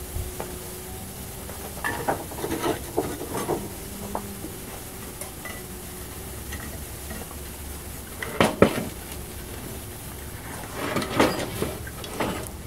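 Metal scraping and clinking in three short bouts as case-hardening compound is scooped and spread over a hot steel slab, the compound sizzling on the hot metal. The sharpest clink comes about two thirds of the way through.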